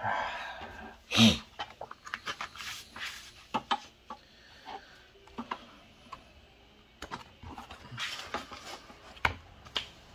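Irregular clicks and knocks of things being moved about. There is a rustle at the start and the loudest knock comes about a second in.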